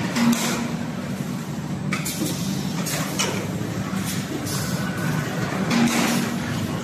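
Automatic paper tube production line running: a steady machine hum from its motors, with irregular clicks and clatters from the moving mechanisms and tubes.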